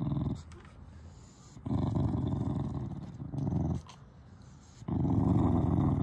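English bulldog growling low in three bouts with short pauses between them, guarding the chew bone in its mouth.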